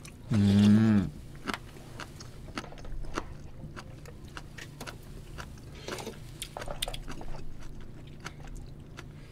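A person eating spoonfuls of sikhye from a plastic tub: scattered small clicks and chewing sounds. A short, loud voice sound comes about half a second in.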